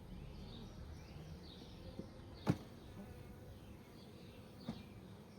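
Honeybees humming steadily at an opened hive, with a bird chirping over and over in the background. There are a few short sharp knocks, the loudest about halfway through.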